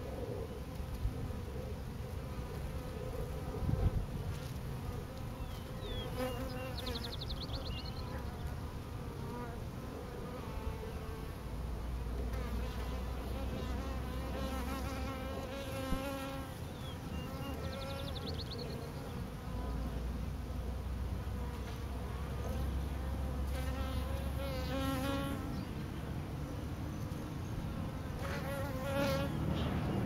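Honey bee swarm clustered on a pine branch, many bees buzzing in a steady hum. Now and then single bees fly close past, their buzz swelling and wavering in pitch.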